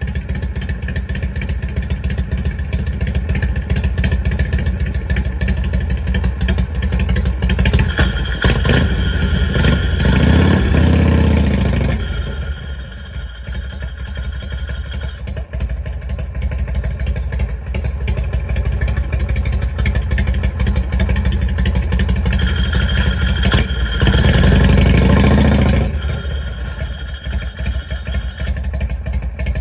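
Harley-Davidson rigid-frame Shovelhead V-twin engine running, speeding up and getting louder about eight seconds in and again about twenty-two seconds in, then dropping back. This is its final check after a clutch judder repair.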